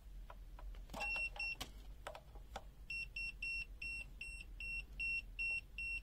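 Aneng ST211 clamp meter's non-contact voltage detector beeping as it is held to a live mains cable. It gives two short high beeps about a second in, then a steady run of short beeps, about three a second, from about three seconds in, showing that the cable is live. A few light handling clicks come in between.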